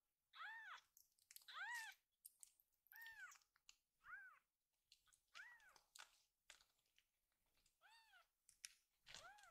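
A very young kitten mewing: about seven short, high mews, each rising and then falling in pitch, with a longer pause before the last two.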